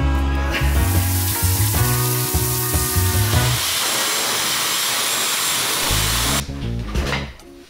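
Handheld hair dryer blowing with a steady rush, coming in under background music with a heavy beat; the music drops out about three and a half seconds in, leaving the dryer alone, and the dryer cuts off suddenly about six seconds in as soft guitar music starts.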